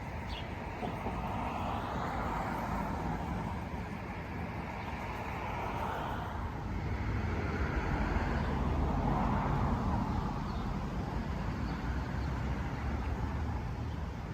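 Road traffic: vehicles passing one after another over a steady low rumble, each swelling and fading away.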